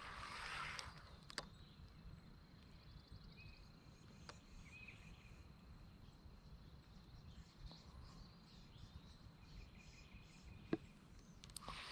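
Faint outdoor ambience near silence: a steady high insect trill with a few short bird chirps. There is a brief rustle at the start and a few sharp clicks, the loudest near the end.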